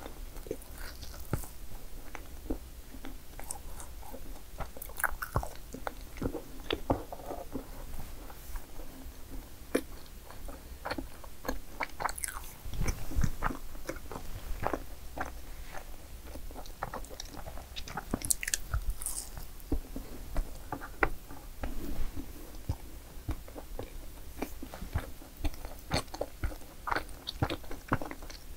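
Close-miked biting and chewing of madeleines: a run of short sharp clicks from bites and chews, the loudest about halfway through.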